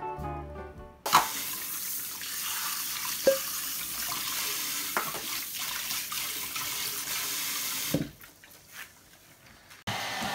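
Kitchen tap running steadily into a sink while dishes are washed under it, with a few sharp clinks. The water starts about a second in and shuts off about 8 s in.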